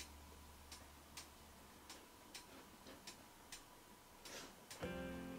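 Near silence with faint ticks about twice a second, unevenly spaced like a tick-tock. Background music comes in near the end.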